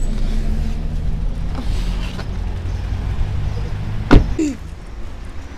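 Low rumble of wind buffeting a handheld camera's microphone, with one sharp knock of handling about four seconds in.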